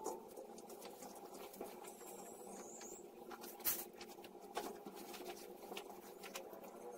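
Faint household cleaning noises: a few short, high squeaks, as of a cloth rubbing on a hard surface, and scattered light knocks over a steady low hum. The loudest knock comes a little past halfway.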